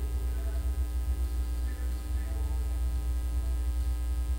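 Steady low electrical mains hum on the microphone line, with a row of faint steady tones above it.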